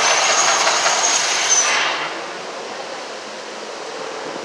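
The Mirage volcano's eruption effect: a loud, even roar with a faint high whistle in it, which drops off sharply about two seconds in as the flames die down. A lower, even rumble remains.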